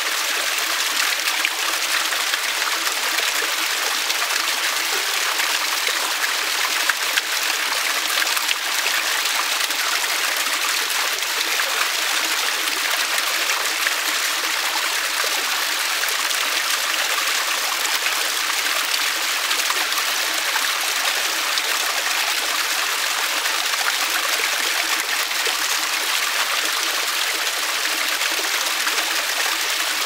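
A small waterfall: a thin stream of water pouring and splashing over wet rock, a steady, even rush with little low rumble.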